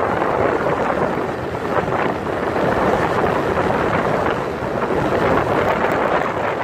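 Wind rushing over the microphone of a motorcycle riding at road speed, a steady loud rush that swells and dips slightly, with the bike's running and road noise mixed in.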